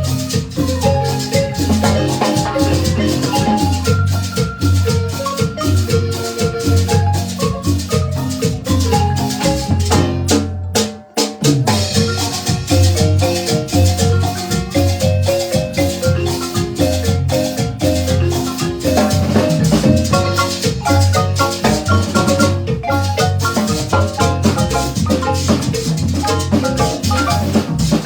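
Marimba band playing a lively piece: quick mallet notes over a pulsing bass, with rattle-like percussion keeping a steady beat. The music drops out for a moment about eleven seconds in, then picks up again.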